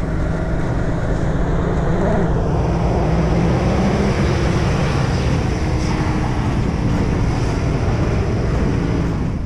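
Jeep Grand Cherokee SUV's engine running hard under steady load as it climbs a snowy slope, with the tyres churning through snow.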